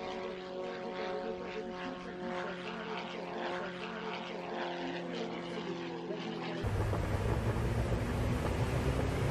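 Single-engine aerobatic propeller plane's engine and propeller droning steadily in flight. About two-thirds through it switches suddenly to louder, deeper engine noise as heard inside the cockpit.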